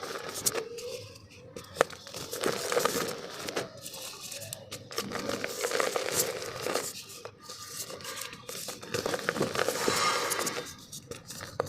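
Dry, dusty black mud dirt being crushed and crumbled in a clay pot. It comes as several stretches of gritty crunching and crackling, separated by short pauses.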